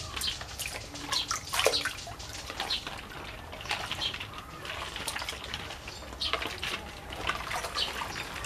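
Water in a small inflatable paddling pool splashing and trickling as a child scoops and pours it with a plastic scoop: irregular splashes and drips, the loudest about one and a half seconds in.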